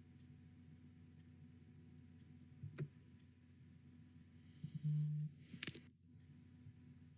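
Faint steady hum of an online-meeting audio line, with a single click about three seconds in, then a short low buzz and a brief burst of hissy noise just before the six-second mark as a participant's microphone comes on.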